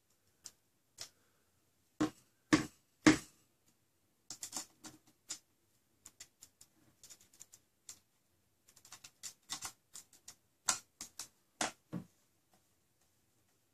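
Irregular clicks and knocks of a Worker Prophecy R blaster's clear plastic shell and aluminium parts being handled and screwed together with a screwdriver. There are three louder knocks about two to three seconds in, then scattered light clicks, and another loose run of knocks near the end.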